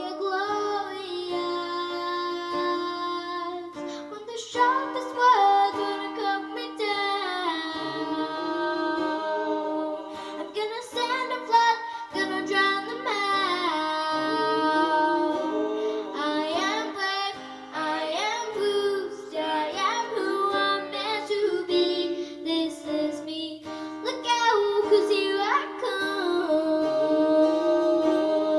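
A young girl singing a song into a microphone, accompanied by an acoustic guitar.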